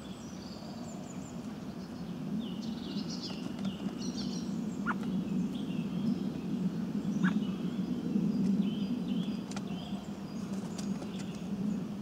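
Small songbirds singing: repeated short, high chirps and brief trills over a steady low rumble.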